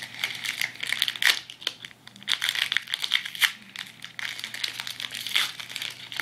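Foil wrapper of a Pokémon trading-card booster pack being torn open and crinkled by hand: a run of irregular crackles and sharp crinkles.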